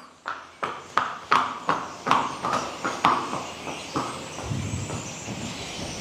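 Hoofbeats of a horse trotting: evenly spaced clip-clops, about three a second, fading out after about four seconds. The steady trot rhythm shows the horse is trotting rather than moving in a gaited horse's footfall.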